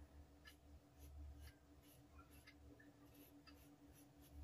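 Faint scratching of tailor's chalk drawn across cotton blouse fabric, a few short irregular strokes, as a neckline shape is marked out.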